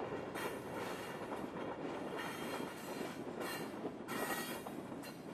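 Subway train running on the rails, its wheels squealing at times in a few short high screeches, the rumble slowly fading.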